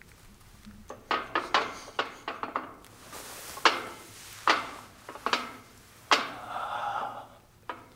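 Irregular clicks and knocks of a metal pull-up bar and its rack uprights as a man grips the bar, hangs and swings his body through a skin-the-cat rotation.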